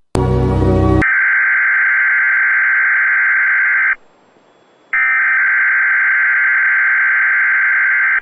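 Weather radio alert signalling: a brief harsh buzz, then two long screeching bursts of SAME digital header data, each about three seconds, with a pause of about a second between them. These are the coded tones that switch on alert-equipped weather radios at the start of a weekly test.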